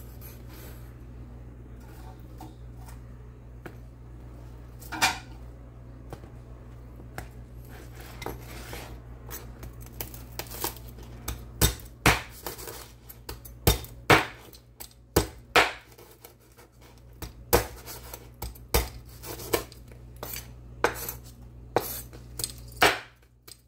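Chinese cleaver chopping crispy fried pork belly on a bamboo cutting board: a few scattered knocks at first, then from about halfway on a run of quick, uneven chops, each a sharp knock of the blade through the pork onto the board. A steady low hum runs underneath and stops just before the end.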